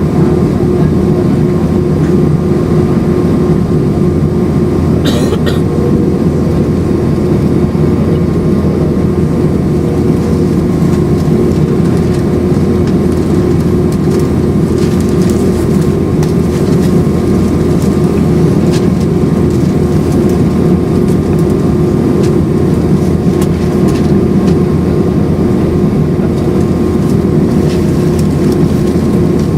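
Airbus A319-131's IAE V2500 jet engines running steadily, heard inside the passenger cabin as a loud, even drone with a steady hum. A brief rattle comes about five seconds in.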